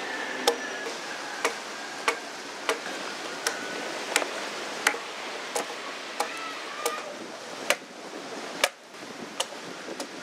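Hatchet chopping into a block of wood by hand: sharp, evenly paced chops about every two-thirds of a second, around fourteen in all, over a steady background hiss.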